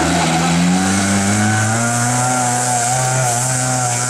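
Toyota Corolla rally car's engine running at moderate revs as the car drives off, its note rising slightly at first and then holding steady.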